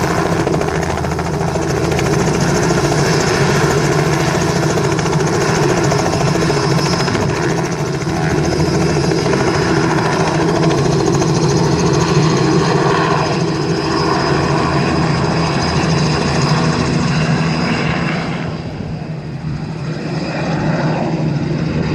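Robinson R44 helicopter lifting off and departing: the steady drone of its rotor and six-cylinder piston engine, dipping briefly in loudness near the end.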